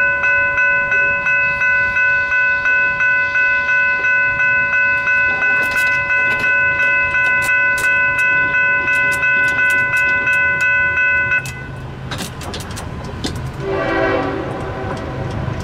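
Railroad grade-crossing warning bell ringing steadily at about three strokes a second while the crossing gates come down. The bell cuts off suddenly about eleven seconds in, leaving a low rumble and a few clicks, and a short horn sounds near the end.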